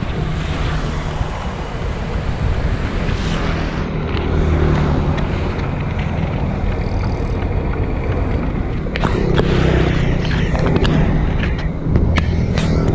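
Dump truck's diesel engine running steadily, with wind noise on the microphone. A few sharp clicks come in the second half.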